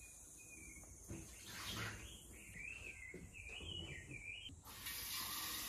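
A few light knocks of a glass vase being handled, with warbling high chirps for about two seconds. Water then starts running from a kitchen tap near the end, a steady hiss and the loudest sound.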